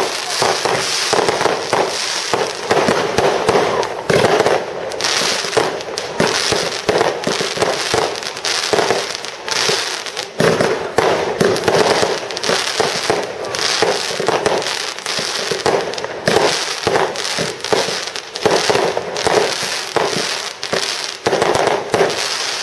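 Fireworks display firing: a dense, continuous barrage of bangs and crackling shell bursts, one after another with no pause.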